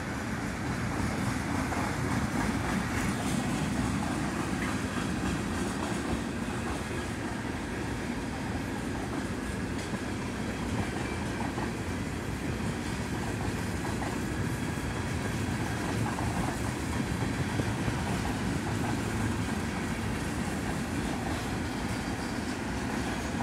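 A CN freight train of empty centerbeam flatcars rolling past at a steady speed. Its wheels make a continuous rolling rumble on the rails.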